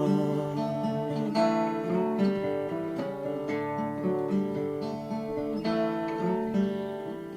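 Acoustic guitar playing alone, picked and strummed chords.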